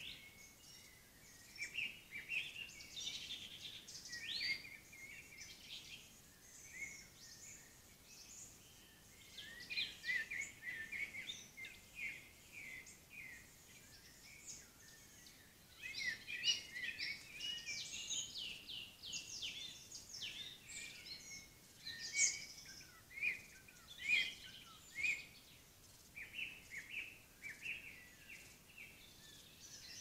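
Several woodland songbirds singing at once, overlapping phrases of quick high chirps and trills in clusters with short lulls between them, over a faint steady hiss.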